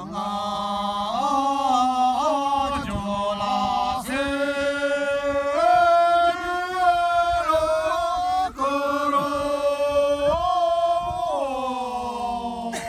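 A group of people chanting together in unison, in three long phrases of held notes that step slowly up and down in pitch.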